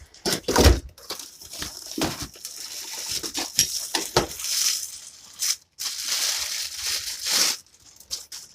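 Packaging being opened by hand: cardboard and plastic rustling, crinkling and tearing in irregular bursts, with a dull thump about half a second in.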